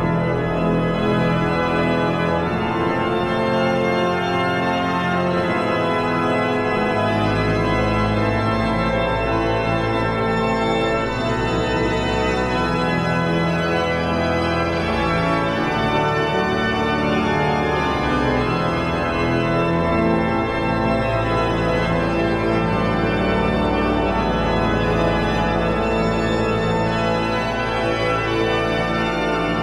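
Hinsz pipe organ played loud with many stops drawn: thick sustained chords over deep bass notes that change every few seconds.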